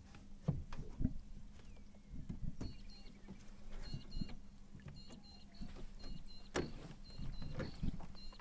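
Knocks and thumps on the boat and water sloshing as a small Murray cod is landed by hand at the bow, over a steady low hum. Short high chirps recur throughout.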